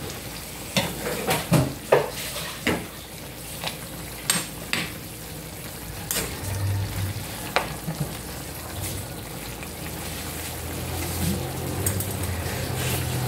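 A pork, chicken-liver and chayote stir-fry sizzling in a frying pan over a gas flame, with a spoon stirring and scraping against the pan in quick clicks through the first five seconds; after that the stirring mostly stops and the pan keeps sizzling.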